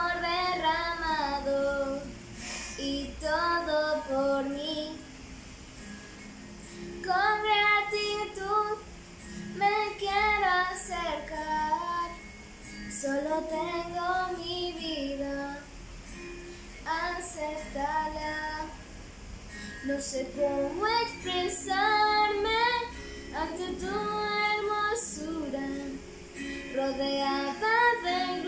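A young girl singing solo, in phrases with short pauses between them.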